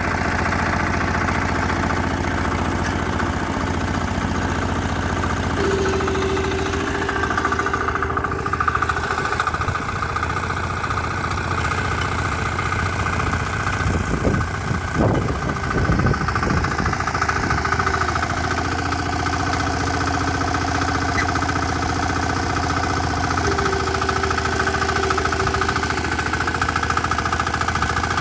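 Engine of a Taurus walk-behind tractor (motocultor) running steadily while it pulls a ridger through tilled soil, its note shifting a few times.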